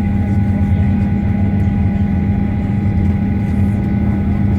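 Steady low drone inside the cabin of a Boeing 737-900ER taxiing after landing, its engines at idle, with a faint thin whine over the hum.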